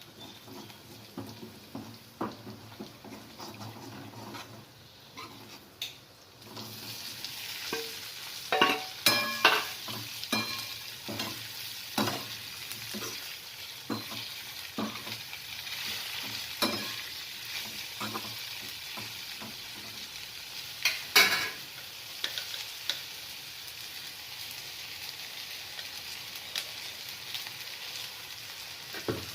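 Okra sizzling as it fries in a pan, stirred with a spatula that knocks and scrapes against the pan. Light clicking at first, then the sizzle starts about six seconds in and keeps on under the stirring.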